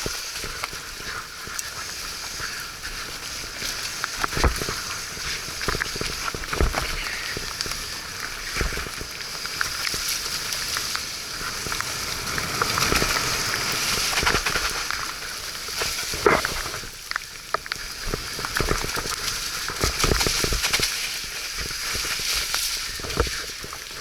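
Mountain bike riding on a wet, muddy trail: tyres running through mud and water, with frequent knocks and rattles from the bike over rough ground.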